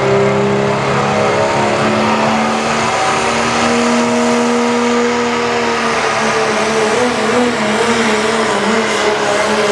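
Diesel engine of a modified Dodge Ram pulling pickup running at full throttle while it drags a weight-transfer sled. The engine note climbs slowly, then wavers up and down over the last few seconds as the load comes on.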